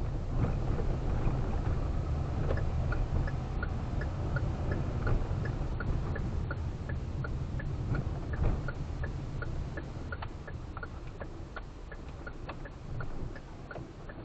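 Low, steady road and engine rumble inside a slow-moving car's cabin, with a turn-signal indicator ticking evenly, about three ticks a second, starting a couple of seconds in.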